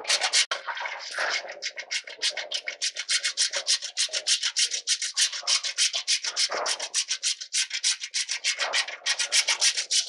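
A spatula scraping a cooking pan in quick, rhythmic strokes, about five a second, breaking up date jaggery in the simmering amda chutney.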